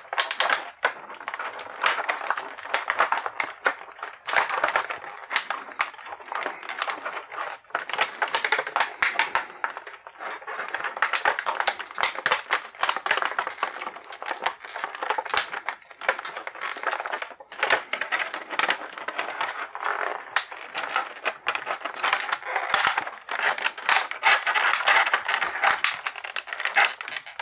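Thin clear plastic blister tray crinkling and crackling as an action figure is worked out of it by hand, a dense, continuous run of small clicks and crackles.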